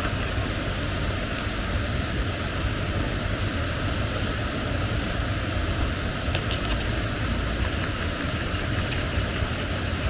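Steady rushing roar of a nearby waterfall, even and unbroken, with a few faint clicks in the second half.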